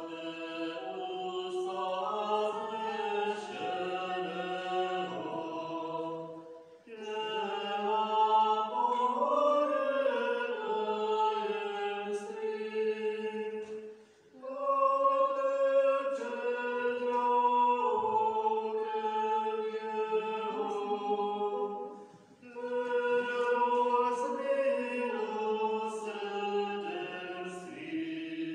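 Liturgical singing: voices chanting a church hymn in phrases about seven seconds long, with a short breath-pause between each.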